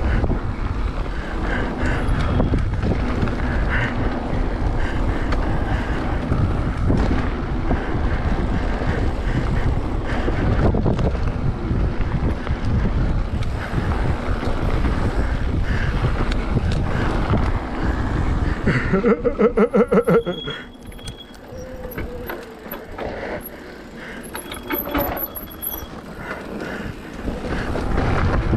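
Mountain bike riding a dirt trail: steady wind rush on the microphone with tyres rolling over dirt and stones. About two-thirds through there is a rapid, evenly pulsing buzz for a second or so, after which the ride goes quieter until the noise picks up again near the end.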